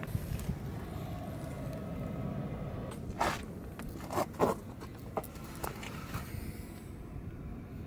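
Shuffling footsteps and clothing rustle on gritty concrete: a run of short scrapes and crunches in the middle, over a steady low rumble.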